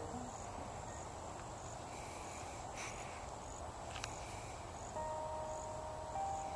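Faint outdoor marsh ambience with an insect chirping in a high, even repeat about every two-thirds of a second, and a couple of soft clicks near the middle. About five seconds in, steady held tones come in over it.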